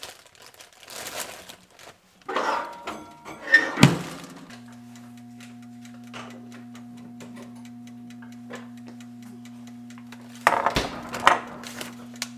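A plastic bread bag rustles as it is opened, with two sharp knocks just under four seconds in. Then a steady low electric hum starts suddenly and holds, and a foil butter wrapper crinkles loudly near the end with a thump.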